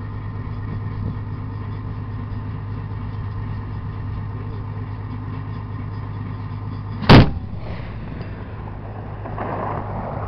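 Armoured vehicle's engine idling steadily while its 25mm turret cannon fires a single high-explosive round about seven seconds in, a sharp loud shot. A fainter rolling sound swells about two seconds later, and a second shot comes right at the end.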